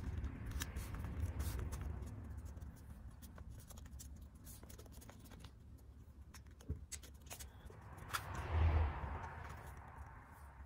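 A yellow paper strip being folded and pressed by hand: faint rustling with scattered small crackles and clicks, and a louder rustle of the paper about two seconds before the end.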